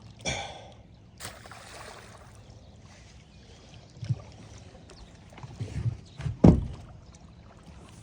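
Knocks and thumps against a fishing boat's hull as people move and handle gear aboard, the loudest about six and a half seconds in, with a brief rush of water-like hiss about a second in.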